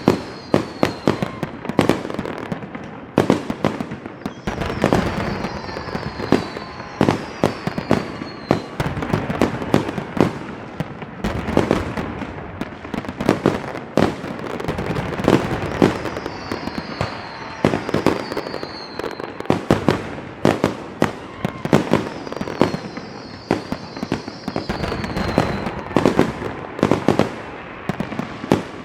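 Fireworks going off in quick succession: a dense run of sharp bangs and crackling, with several short, high whistles falling in pitch now and then.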